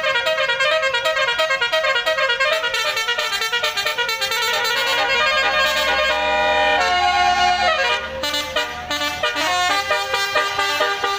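Bus telolet horn, a multi-tone musical air horn, playing a quick run of repeating melodic notes. About halfway through it holds a long chord over a low rumble, then goes back to the quick notes.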